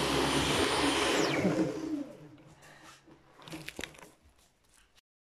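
Stick vacuum cleaner running on a wooden floor, then switched off about a second and a half in, its motor whine falling as it spins down. A few faint knocks and clicks follow.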